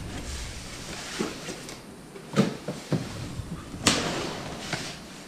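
Cardboard box being opened and its plastic-wrapped rack parts handled: rustling, with a few sharp knocks, the loudest about four seconds in.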